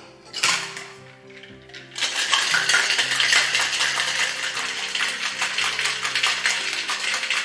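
A short knock as the shaker is closed, then from about two seconds in ice rattling hard and fast inside a metal cocktail shaker being shaken, over background music.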